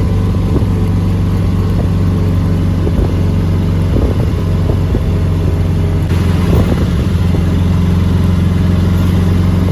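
Auto-rickshaw engine running steadily and loud, heard close up, with light rattling clatter over the hum.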